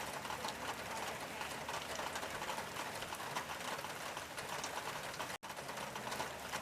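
Steady rain on a tin roof: a dense patter of many small drop ticks on the metal. The sound drops out for an instant about five seconds in.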